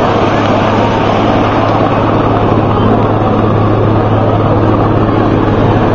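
Search-and-rescue helicopter flying, its rotor and turbine noise loud and steady with a constant low hum.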